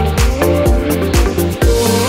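Electronic dance music: a steady kick drum about twice a second with hi-hats over held synth chords.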